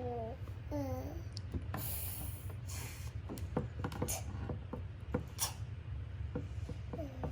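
Young children's voices: two short pitched vocal sounds near the start, then several brief breathy hissing sounds and scattered light taps over a steady low hum.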